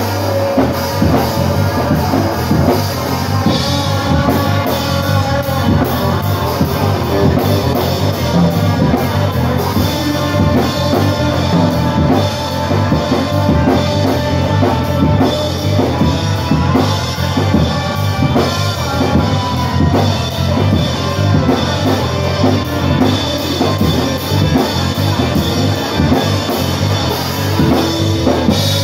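Live rock band playing loud, with electric guitar over a drum kit keeping a steady beat.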